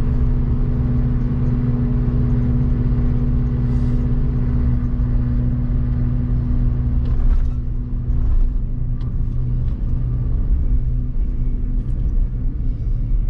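Inside a Suzuki Jimny JB23 on the move: a steady, loud droning hum with a held tone over the road and engine noise, like an aircraft flying close by. It is an abnormal noise that stops when the foot comes off the accelerator, and its cause is unknown to the owner. The higher part of the tone fades out near the end.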